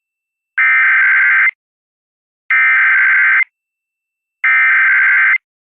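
Emergency Alert System SAME header: three identical bursts of loud digital data tones, each about a second long and about two seconds apart. These bursts carry the coded start of a tornado warning broadcast over AM radio.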